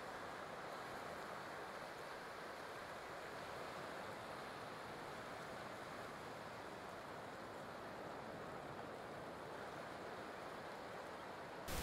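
Faint, steady wash of ocean surf on the shore, an even hiss with no distinct events. It cuts abruptly to a louder noise right at the end.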